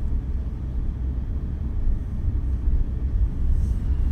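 Steady low rumble of a car moving along a road, heard from inside the cabin: engine and tyre noise.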